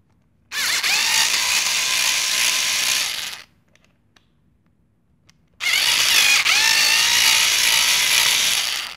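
Cordless drill-driver with a screwdriver bit running twice, about three seconds each, backing small screws out of a plastic housing. Each run starts and stops abruptly.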